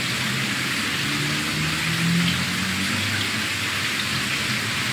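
A steady, even hiss with faint low tones underneath.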